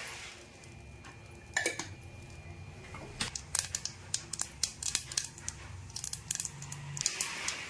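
Mustard seeds popping in hot melted butter in a pressure cooker: scattered sharp pops at first, coming thick and fast from about three seconds in.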